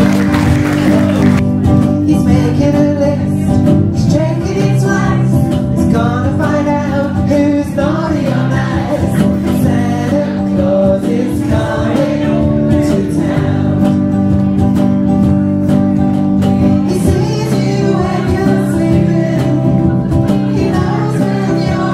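Live band music: a woman sings into a microphone over a semi-hollow electric guitar, loud and steady.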